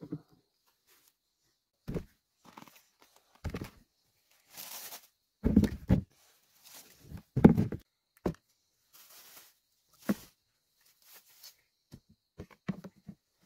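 Scattered thuds, knocks and rustles of produce being handled and set into a plastic bucket among undergrowth, the loudest thuds a little past halfway, with small clicks near the end.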